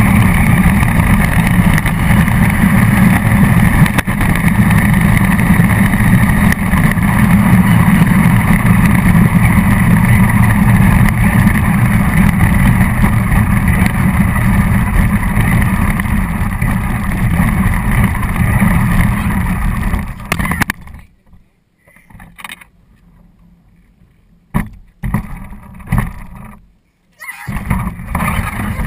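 Radio-controlled car running: a loud, steady motor and rolling noise that cuts out suddenly about two-thirds of the way through, leaving near quiet broken by a few short knocks.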